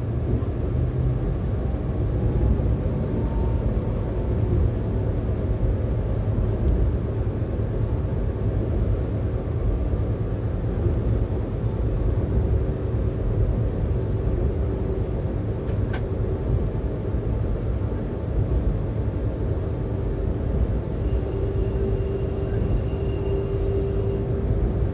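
Diesel locomotive running, heard from inside the driver's cab: a steady low rumble with no pauses. A faint steady hum joins near the end, and there is a single sharp click about two-thirds of the way through.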